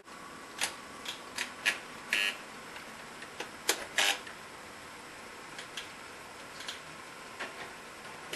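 Irregular light clicks and clacks from an HO-scale model railway layout, about a dozen, bunched in the first half and sparser later, over a faint steady high hum.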